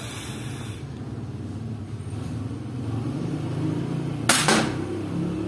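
A single air pistol shot about four seconds in: a sharp crack with a brief hissy tail. A steady low rumble runs underneath throughout.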